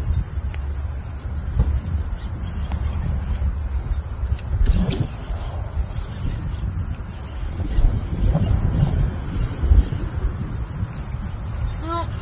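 Steady high-pitched insect chorus, a continuous fine trilling buzz, over a low rumble. Faint brief voices come through twice.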